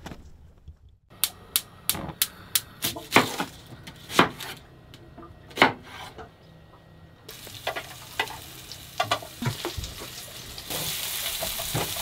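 A run of sharp kitchen knocks and clicks, about three a second at first, then a frying pan of pre-cooked chicken sizzling, which grows louder near the end.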